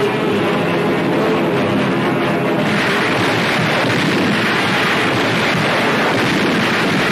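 A steady, loud rushing roar, a dubbed battle or aircraft sound effect on an old newsreel soundtrack, swelling about three seconds in. Faint music runs beneath it.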